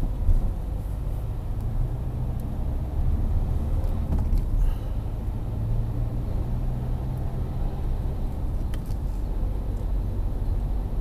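Car engine and road noise heard from inside the cabin, a steady low hum and rumble as the car gathers speed.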